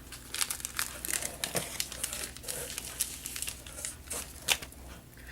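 Plastic wrapping and bubble wrap crinkling irregularly as they are handled and pulled off a makeup brush, with a sharper crackle about four and a half seconds in.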